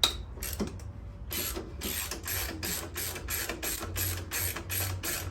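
Ratchet wrench being worked on a bolt: a sharp click, then steady ratcheting strokes at about four a second.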